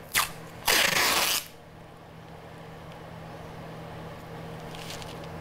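Masking tape pulled off the roll: a short tug, then a longer tearing rip of about two-thirds of a second, and a fainter pull near the end, over a steady low hum.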